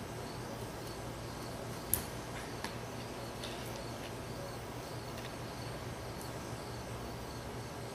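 A Marucci wooden bat striking a dried soup bean: one sharp click about two seconds in, then a fainter tick, over a steady low hum and hiss.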